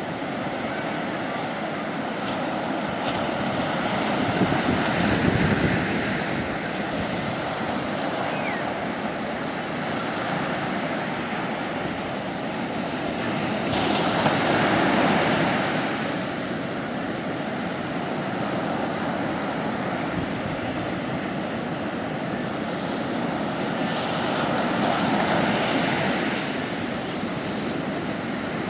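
Sea waves breaking and washing up a sandy beach: a continuous surf wash that swells louder three times, about 5, 14 and 25 seconds in.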